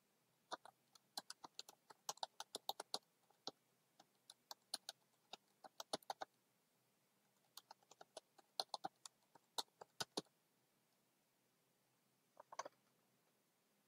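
Typing on a computer keyboard: runs of quick individual keystrokes, a pause of over a second about halfway through, and a short cluster of clicks near the end.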